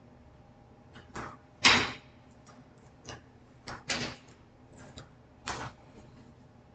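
About six short knocks and scrapes at irregular spacing, the loudest about two seconds in.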